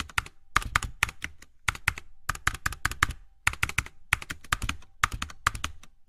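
Computer keyboard typing: short runs of several quick keystroke clicks, a new run starting about every half second to second.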